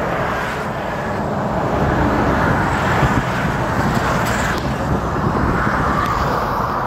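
Interstate highway traffic passing: a steady rush of tyre and engine noise from cars and a large truck, swelling gently as vehicles go by.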